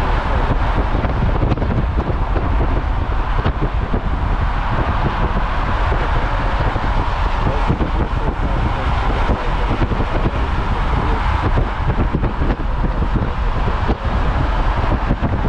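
Steady road noise and wind rushing past a car travelling at road speed, with wind buffeting the microphone and traffic noise from the lanes alongside.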